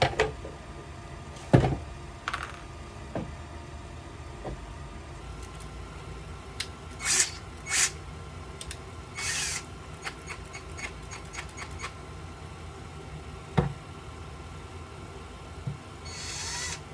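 Scattered clicks and knocks with a few short scraping bursts as tools and rivet parts are handled on a leather holster strap; the loudest is a single knock about a second and a half in.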